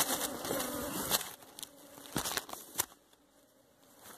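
Honey bees buzzing at an opened hive, fading after about a second, followed by a few sharp clicks and crackles.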